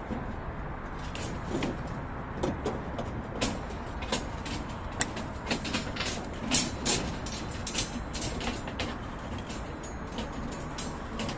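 Steel tie wire being wrapped and twisted with pincers around rebar, giving irregular small metallic clicks and ticks, over a steady low rumble.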